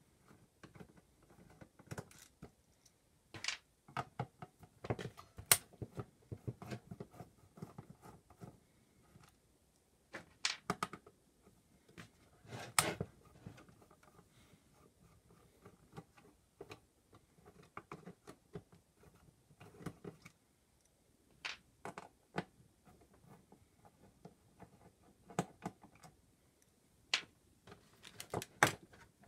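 Screws being undone with a hand screwdriver from the bottom panel of a Roland PR-100 sequencer. The tool, the loose screws and the case give irregular clicks and taps against the panel and the wooden workbench, some of them sharp.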